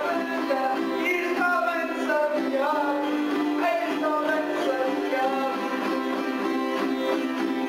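A man singing a despique, Portuguese improvised sung verse, over a strummed acoustic guitar and a smaller guitar-like string instrument. The voice wavers and slides between held notes.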